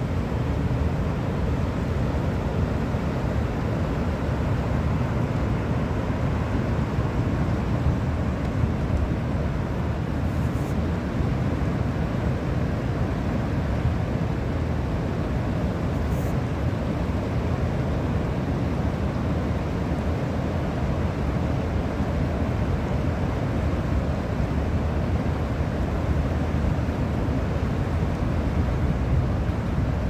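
Continuous low rushing of high river water pouring over a low dam and churning through the rapids below it, steady throughout.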